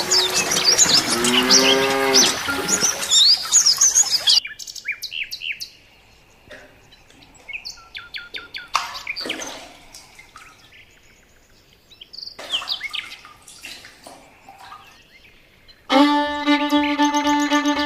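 Small birds chirping and singing: dense at first, then sparse and quieter from about four seconds in. Near the end a fiddle tune comes in.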